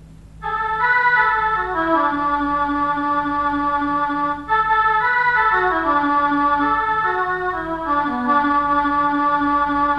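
Music of held, sustained chords over a line of notes that steps downward. It starts about half a second in and breaks off briefly about four and a half seconds in.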